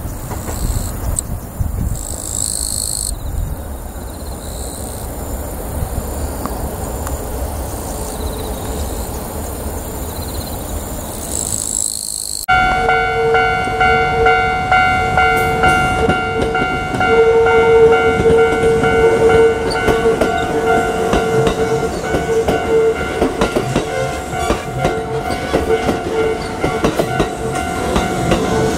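Kintetsu train running on the track with wheel clatter and a low rumble. About halfway in the sound changes abruptly to a louder train passing close, with a steady hum of several pitches over the rumble.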